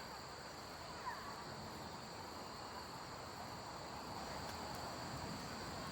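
Steady insect chorus, a continuous high-pitched drone of calling insects, with a few faint short chirps.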